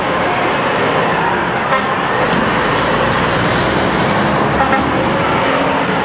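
Decorated trucks (dekotora) driving out, their engines running in a steady, loud wash of vehicle noise.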